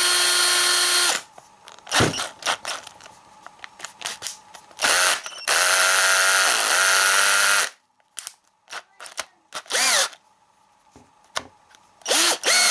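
Interskol 14.4 V Li-ion cordless drill/driver motor running in trigger bursts. One steady run stops about a second in, then come several short runs and one of about two seconds, the pitch rising and falling as it speeds up and slows down, with small clicks between runs. It is running normally on its rebuilt 18650 battery pack now that a missed balance lead has been soldered in; before that fix it cut out after a few seconds.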